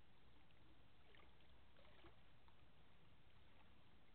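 Near silence: faint outdoor background with a low steady rumble and a few faint short high sounds about one to two seconds in.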